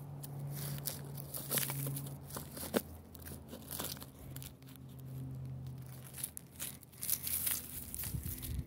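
Dry straw, twigs and dirt crackling and rustling as a hand moves through them close to the microphone, in many short irregular snaps, over a faint steady low hum.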